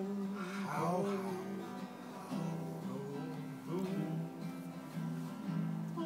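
Guitar playing steady notes, with a voice singing wordless, sliding notes along with it in the first second or so and briefly again near the middle.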